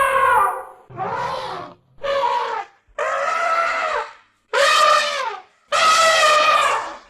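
Elephant trumpeting: a string of about six loud, short trumpet calls in quick succession, each a second or less long and bending in pitch, separated by brief gaps.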